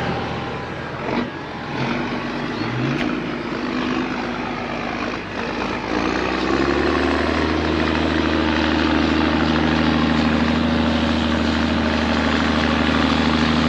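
Tractor engine running under steady load, its note settling into an even hum about halfway through.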